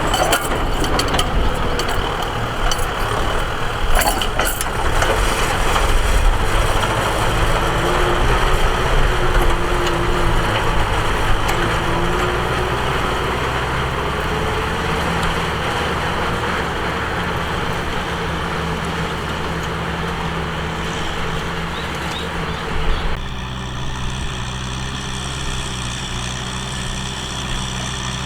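Tractor engine running steadily, with a few sharp metallic clicks in the first few seconds. The engine sound changes abruptly about 23 seconds in.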